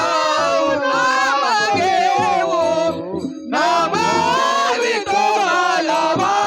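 Marathi abhang devotional song: a melodic sung line over musical accompaniment, in two phrases with a short break about three seconds in.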